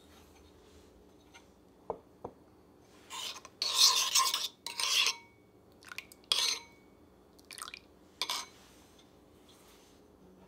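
A metal spoon stirring and scraping against the inside of a bowl, dissolving gelatin in a small amount of warm liquid. Two light knocks about two seconds in, then irregular scraping strokes, loudest about four seconds in, ending about two seconds before the close.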